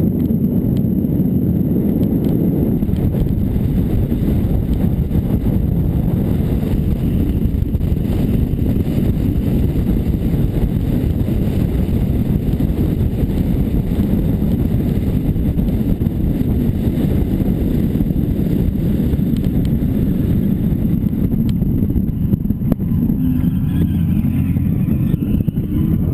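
Turbocharged SR20DET four-cylinder drift car engine, heard from inside the cockpit, running hard at track speed with steady wind noise. It eases off about three-quarters of the way through as the car slows.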